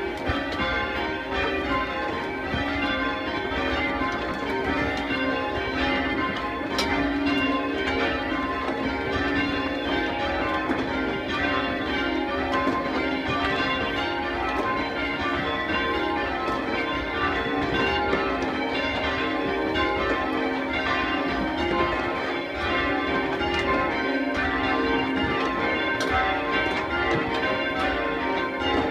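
Peal of church tower bells being rung down: the bells strike over and over in quick, overlapping succession as they are swung lower toward rest.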